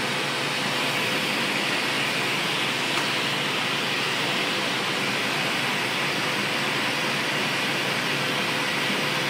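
Glassblowing bench torch burning steadily: a continuous rushing hiss of the oxygen-fed flame, with a faint steady hum underneath.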